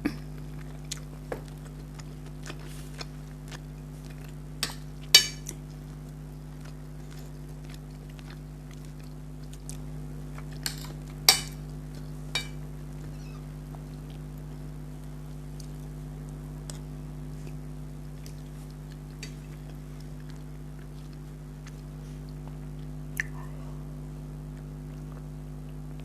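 A person chewing mouthfuls of chicken green curry and rice, with a few sharp clicks scattered through, the loudest about five and eleven seconds in, over a steady low hum.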